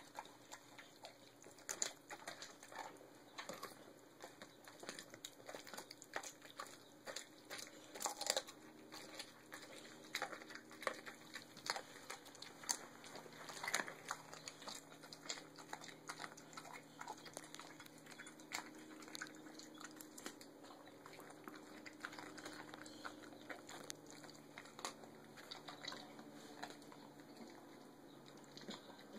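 A large dog chewing and crunching raw meat and bone, with irregular sharp crunches and clicks throughout.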